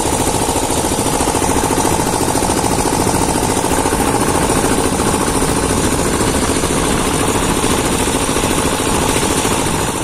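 A motor vehicle's engine running loud and steady at close range, with an even low rumble throughout.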